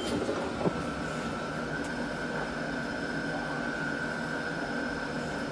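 Steady hum and whir inside a passenger elevator car riding between floors, with a constant high tone over it; the recording is sped up to double speed, raising its pitch.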